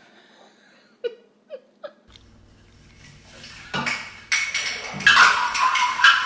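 Commotion as a cat brings an artificial Christmas tree crashing over: loud rustling and clattering, with a high voice crying out over it near the end.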